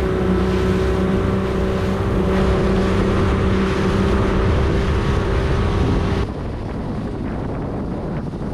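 A boat's outboard motor runs at a steady pitch, then cuts off suddenly about six seconds in. Wind on the microphone and water noise remain after it stops.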